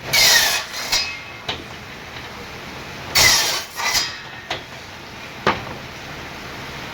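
Hand-tool work on wood: two loud scraping bursts, each with a short falling squeal, one at the start and one about three seconds in. Sharp single knocks are spaced through the rest.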